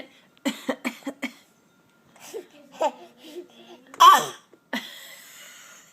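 A quick run of short playful coughs, then a baby's babbling and laughter. The loudest is a laugh about four seconds in.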